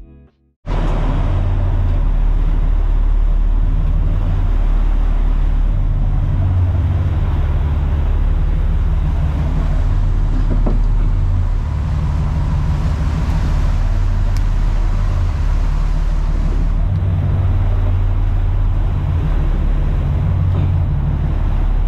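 Sportfishing boat underway at speed: a steady, loud engine drone with the rush of churning water from the hull and wake. It starts about half a second in and keeps going without a break.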